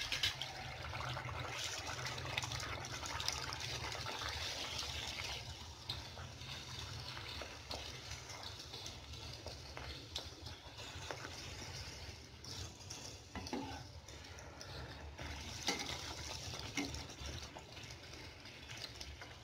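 Spinach puri deep-frying in hot oil in a steel kadhai: a steady crackling sizzle, loudest in the first few seconds after the dough goes into the oil, with a few light clicks later on.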